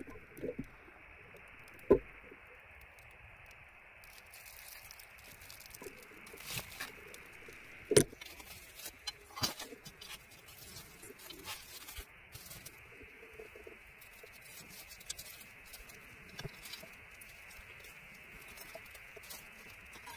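Scattered clicks and knocks over a faint steady hiss, with two sharp, loud knocks about two and eight seconds in.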